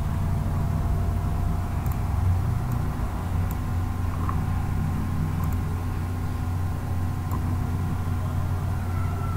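Steady low background hum with a few faint, brief clicks scattered through it.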